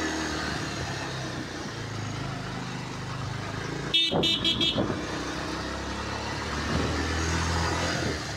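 Bajaj Pulsar 150's single-cylinder engine running steadily at low road speed. About halfway through comes a quick run of four short, high-pitched beeps.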